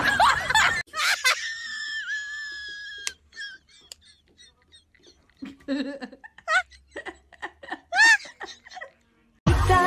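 High-pitched laughter in short, scattered giggles and squeals, opening with one long held squeal. It begins just after a short burst of music and voice.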